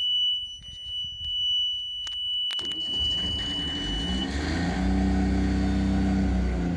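The engine-panel alarm buzzer sounds a steady high tone while a sailboat's inboard diesel engine is cranked by the starter. The engine catches about three seconds in, on the first try, and settles into a steady run. The buzzer cuts off about a second later as oil pressure comes up.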